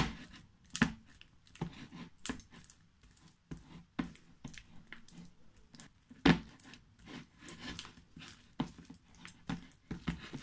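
Foam slime being kneaded and squeezed by hand, giving wet squishing with irregular sticky pops and crackles. The sharpest pops come right at the start and about six seconds in.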